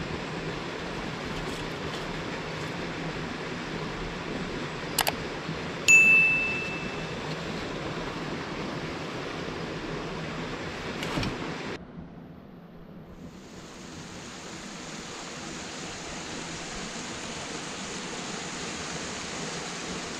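Steady rush of river water flowing over rocks in a canyon. There is a sharp click about five seconds in, then a single bright metallic ding that rings and fades. About twelve seconds in the sound cuts to a quieter, higher rush of water and air.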